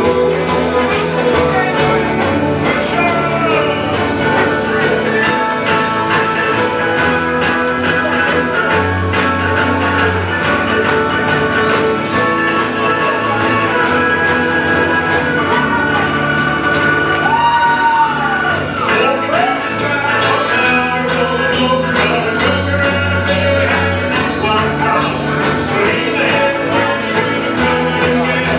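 Live country band with banjo, electric and acoustic guitars and drum kit playing a song.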